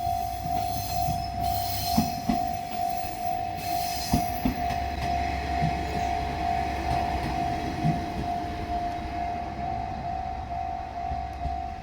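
Level-crossing warning bell ringing steadily while a diesel railcar rolls over the crossing, with a low engine rumble and sharp wheel knocks over the rail joints around two and four seconds in.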